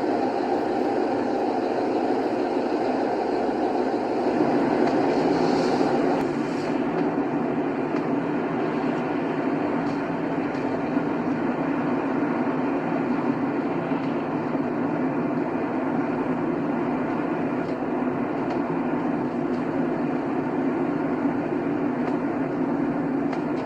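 A car driving on a highway: steady road and tyre noise with the engine underneath, which eases a little about six seconds in.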